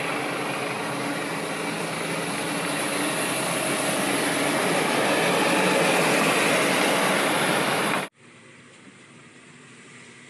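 Articulated lorry running, a loud steady engine and mechanical noise that builds slightly, then cuts off suddenly about eight seconds in, leaving a much quieter steady hum.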